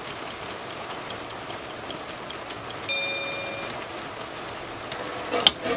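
Rapid, even ticking, about five ticks a second, that stops about three seconds in with a short ringing tone. A single sharp click follows near the end.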